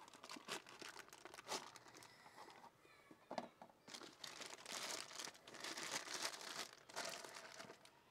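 Cardboard box and plastic wrapping of a new spin-on oil filter being handled and opened, with irregular crinkling that is busiest from about four seconds in.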